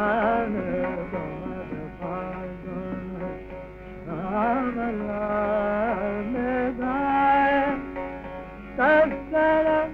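Indian classical music: a single melodic line of held, ornamented notes that slide and waver, in phrases with short breaks, sounding dull and narrow like an old recording.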